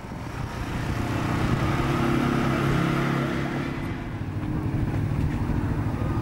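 Boeing 757's jet engines running as the airliner turns on the runway after landing, growing louder about a second in and then holding steady, with a low hum of several tones.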